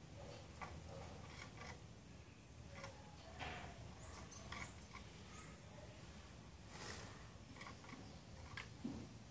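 Caged saffron finch giving scattered faint, short chirps and buzzy call notes, with a few brief high chirps about four to five seconds in, among light ticks.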